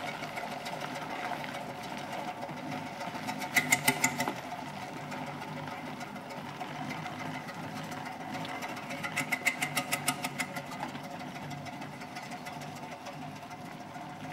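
Steam traction engine on the move, a steady mechanical clatter from its motion and gearing, with two spells of quick, regular beats about four and nine seconds in. It fades a little toward the end as it draws away.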